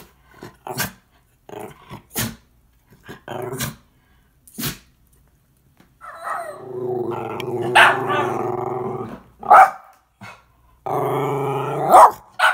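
Schnauzers demand-barking for playtime: a run of short, sharp barks, then a long growling grumble around the middle, another shorter one near the end, with barks between.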